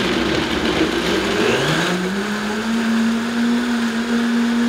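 High-speed countertop blender running, blending soaked nuts and water into a cream; its motor pitch rises as the speed is turned up about a second and a half in, then holds steady at the higher speed.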